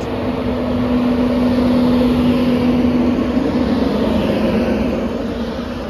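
Class 91 electric locomotive 91110 heading an InterCity 225 as it moves past, a rumbling run with a steady low hum that stops about three seconds in; the sound then slowly fades.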